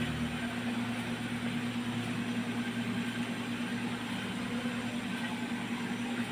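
A steady machine hum: an unchanging low drone with an even hiss over it.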